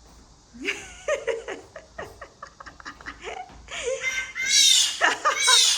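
A person laughing in short bursts that grow louder, loudest near the end.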